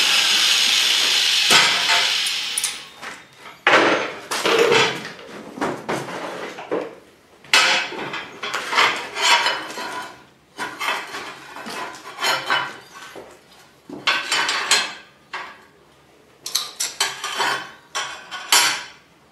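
Fresh steel weld beads being cleaned by hand: a run of short metal scraping and knocking strokes, some sharper knocks near the end. A steady machine noise runs at first and stops about two seconds in.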